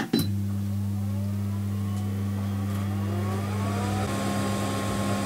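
Rawmid multi-oven started with a click of its start button, then its motor running with a steady low hum while a whine glides up in pitch as it spins up, levelling off about four seconds in.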